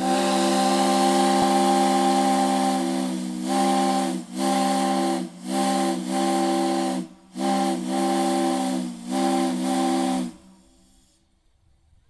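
Crosby 10-inch three-chime steam whistle blowing a three-note chord with a steam hiss: one long blast of about three seconds, then a string of about six shorter blasts, stopping about ten seconds in.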